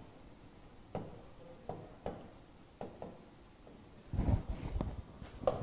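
Pen strokes and light taps of a stylus writing on an interactive digital board: a few soft short scrapes about a second apart. About four seconds in there is a louder low rustle, and a sharp tap comes near the end.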